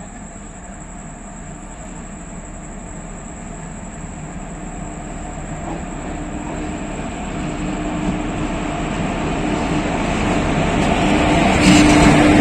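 Passenger train approaching slowly, its rumble growing steadily louder as it comes nearer; a steady hum joins about halfway through and is loudest near the end.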